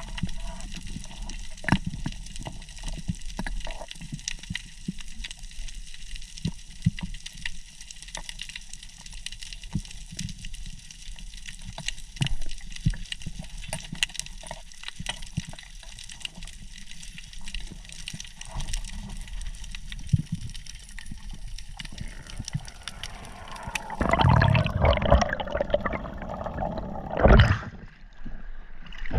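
Underwater sound through an action camera's housing: a steady crackle of scattered faint clicks, then water rushing and splashing as the diver swims up and breaks the surface near the end.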